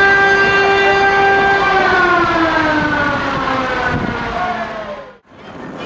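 A loud siren-like tone, full of overtones, holds a steady pitch, then slides slowly down over about three seconds as if winding down. It cuts off suddenly near the end, and a steady engine and street noise follows.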